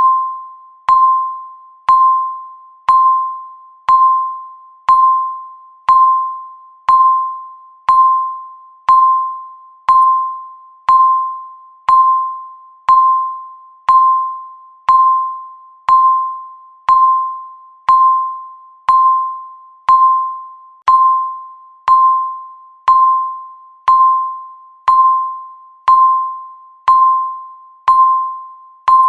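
Countdown timer beeping once every second: a single clear electronic tone, each beep starting sharply and fading away before the next, in an even, unchanging rhythm.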